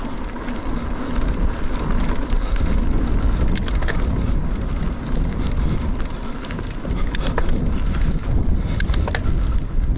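Mountain bike ride noise on a dirt trail: tyres rolling and rumbling over the dirt, with wind on the microphone. Scattered sharp clicks and rattles come from the bike or from stones, a few about three to four seconds in and again near seven and nine seconds.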